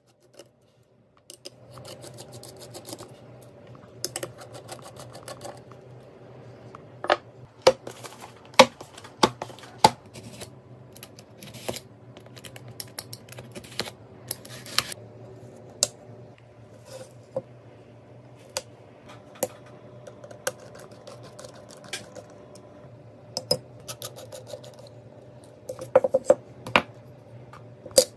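Close-up handling of computer parts with small tools: a string of sharp clicks and taps as a precision screwdriver, metal heatsink plates and a memory module are worked on a mat. About halfway through, a box-cutter blade scrapes through the seals of SSD boxes. A steady low hum runs underneath.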